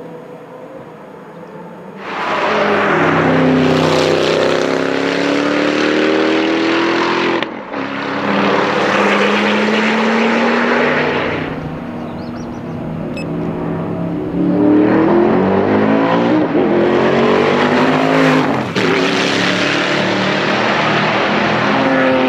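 Gumpert Apollo Sport's tuned Audi 4.2-litre twin-turbo V8 running quietly at first, then about two seconds in accelerating hard with its pitch climbing. It makes several loud full-throttle runs with short breaks between them and a lull around the middle.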